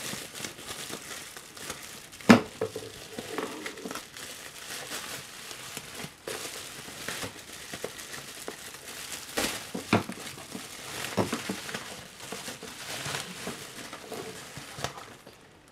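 Plastic bubble wrap crinkling and rustling as it is pulled off a boxed model, with a few sharp clicks, the loudest about two seconds in.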